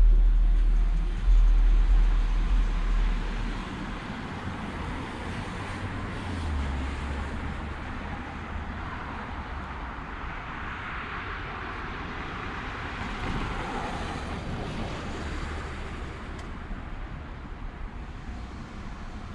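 Roadside traffic at night. A loud deep rumble dies away in the first few seconds, then a vehicle's tyre noise swells and fades around the middle, over a steady low hum of distant traffic.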